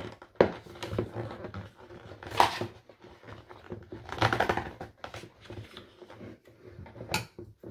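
Hard plastic clicking, knocking and rubbing as the handle piece of a plastic toy popcorn bucket is worked and pried at, which is hard to get off. There are a couple of sharp clicks about half a second and a second in.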